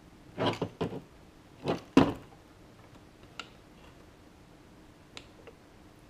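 Metal clicks and knocks of an HPC cylinder removal tool being fitted and lined up on a lever lockset: a quick cluster in the first second, a sharper click about two seconds in, then a few faint ticks.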